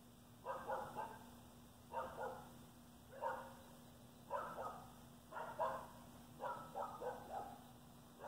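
Repeated short animal calls, about one group a second, some coming in quick pairs or threes, over a low steady hum.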